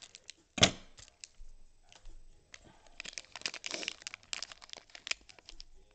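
Plastic wrapper of an NBA Hoops trading-card pack crinkling and tearing as it is ripped open by hand, in bursts of rustling. A single sharp snap about half a second in is the loudest sound.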